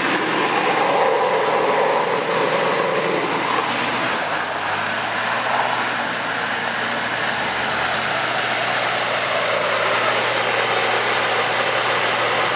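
Off-road 4x4's engine running under load as the vehicle crawls through deep mud, its low steady note shifting about four seconds in, over a loud, even hiss.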